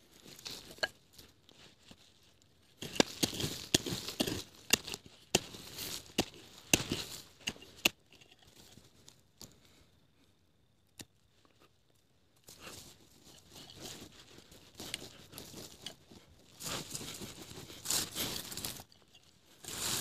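Rustling, crunching and tearing sounds in irregular bursts, with scattered sharp clicks and two pauses of near silence, one early on and a longer one about halfway through.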